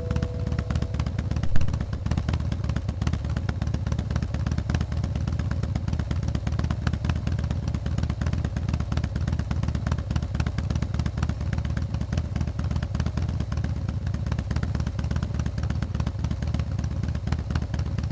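Indian FTR motorcycle's V-twin engine running at a fairly steady speed, with one brief louder blip about a second and a half in.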